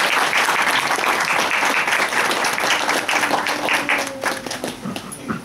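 A small group applauding, many hands clapping at once, thinning out and dying away near the end.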